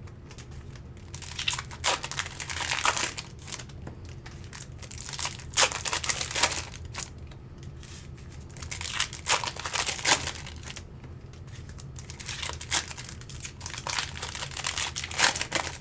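Trading-card pack wrappers being torn open and crinkled by hand, in irregular bursts of crackling and ripping.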